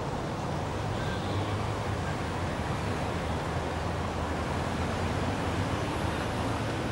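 A ship's engine drones steadily, low and even, under a rush of wind and water.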